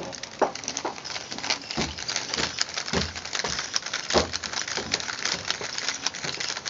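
Plastic 3x3 Rubik's cube being turned fast by hand: a dense, irregular run of clicks and clacks as the layers snap round, with a few heavier knocks.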